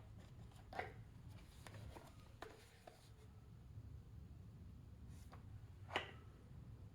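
Faint, scattered clicks and taps of toy cars being handled and set down, the sharpest one about six seconds in, over a low steady hum.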